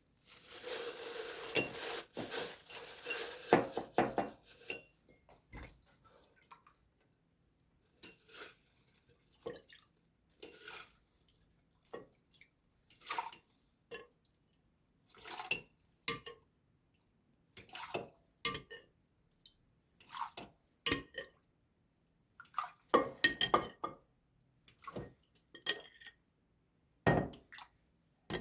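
Water runs for about four seconds, then dishes and utensils clink and knock against each other in separate short strikes, a second or two apart.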